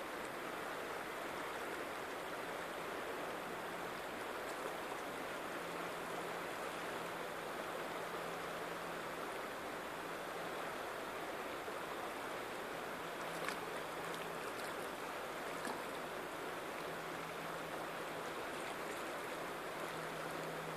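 The American River flowing, a steady sound of moving water. A faint low hum comes and goes, and a few faint clicks fall about two-thirds of the way through.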